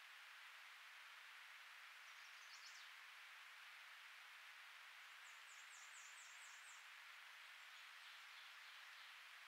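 Faint songbird calls over a steady hiss: a short cluster of high notes about two seconds in, then a series of about eight quick, high, downward-sliding notes around five to seven seconds in.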